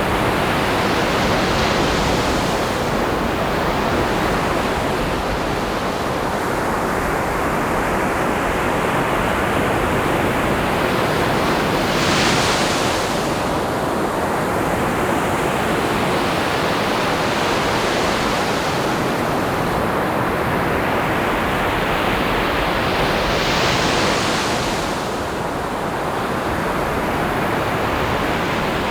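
Ocean surf: waves breaking and washing up in a continuous roar, with a brighter hissing surge every several seconds as each wave breaks, the loudest about twelve seconds in.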